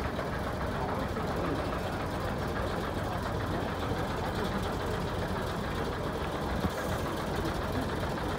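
Classic single-deck bus's diesel engine running steadily at low revs as the bus reverses.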